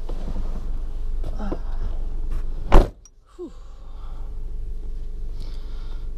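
A car door slams shut about three seconds in, a single sharp thump that is the loudest sound; the steady low rumble heard before it cuts off abruptly and comes back quieter, as heard from inside the closed car.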